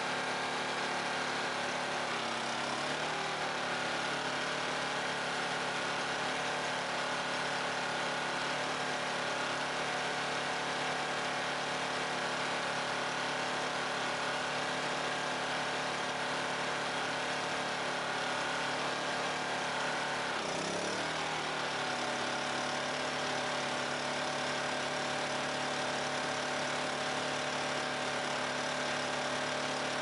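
2200-watt Quiet Power Technology inverter generator's engine running steadily. Its pitch dips briefly and climbs back twice, about two seconds in and again around twenty seconds in.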